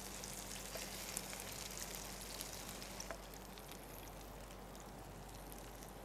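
Faint sizzling and crackling of caramelised sugar coating banana pieces in a frying pan over a gas flame, a little quieter after about three seconds.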